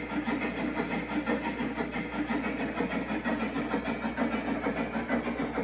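G scale Shay locomotive's digital steam sound, played from the Railpro sound system in the trailing boxcar, chuffing in a quick, even rhythm as the model runs in reverse along the track.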